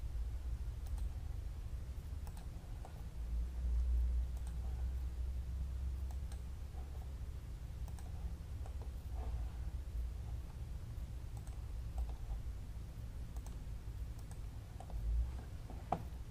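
Computer mouse clicking now and then, single faint clicks with a slightly sharper one near the end, over a steady low hum.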